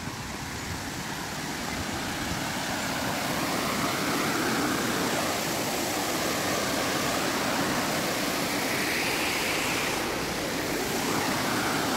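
River water rushing over a low weir and through rocky rapids: a steady rushing that grows louder over the first few seconds.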